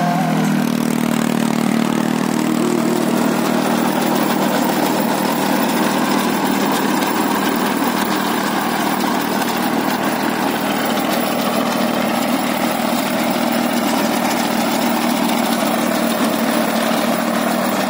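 Force Orchard DLX small diesel tractor engine running under load as it drives a rotavator through soil, the rotavator blades churning the earth. The engine note picks up right at the start, then holds steady.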